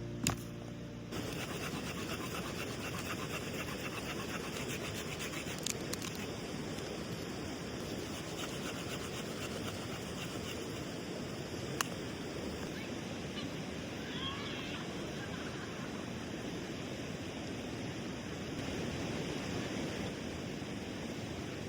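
A river flowing steadily, a constant rushing of water, with a few faint sharp clicks.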